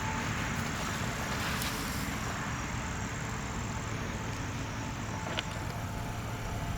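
Steady low outdoor background rumble with no siren sounding, and one brief click about five seconds in.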